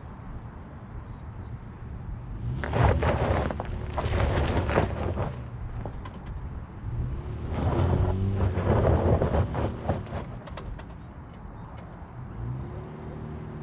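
Honda Ridgeline's 3.5-litre V6 running under load and revving up and down as the truck climbs a rough dirt slope. Two loud stretches of tyres crunching over loose dirt and stones, the first about three seconds in, the second from about halfway to near the end.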